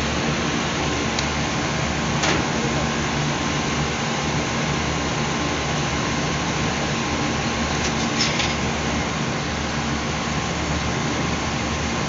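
Steady drone of running air-conditioning machinery, a low hum under an even whoosh of air. Brief faint crackles about two seconds in and again after eight seconds as electrical tape is pulled off the roll.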